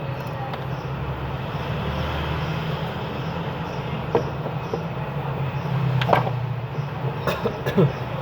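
Steady low background hum and rumble, with a few light clicks and taps scattered through the second half.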